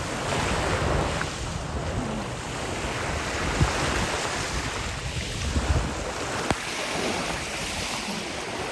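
Sea waves washing onto the beach, with wind buffeting the microphone in a low, gusting rumble. Two brief sharp clicks, about three and a half and six and a half seconds in.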